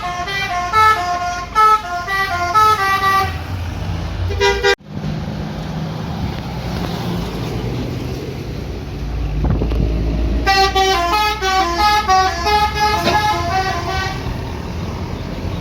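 Indonesian bus 'telolet' musical air horn playing a quick melody of stepped notes twice. The first run breaks off abruptly about 5 s in. Between the two runs the bus's diesel engine rumbles low.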